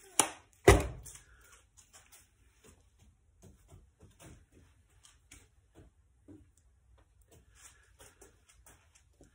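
Three sharp knocks in the first second, the last a heavy thump. After that, faint rustling and light clicks of hands gripping and bending a wrapped steel nail.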